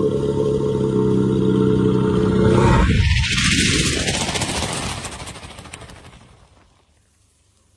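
Elephant snoring: a loud, rough, rumbling breath swells about three seconds in and fades away over the next few seconds.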